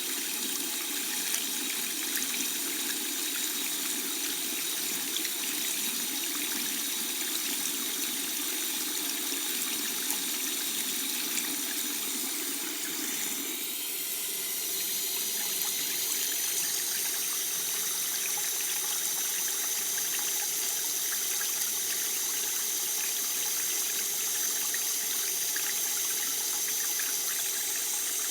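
Water tap running in a steady stream. About halfway through the sound changes to a brighter, hissier pitch with less of the low splash.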